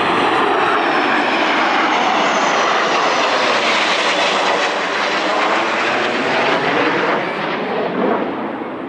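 Low-flying military jet aircraft passing overhead: a loud, continuous jet roar whose pitch slowly sweeps, dying away over the last second or so.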